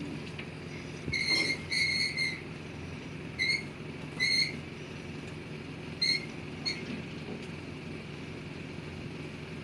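Boom pivot squeaking as the boom moves: about seven short, high-pitched squeaks, over the steady hum of the running machine. The squeak is a dry, ungreased joint, which the seller says only needs lubricating.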